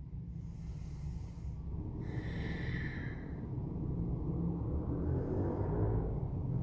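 A woman's deep yoga breathing while holding a seated twist: a breath about two seconds in and a longer one from about three and a half seconds, over a steady low hum.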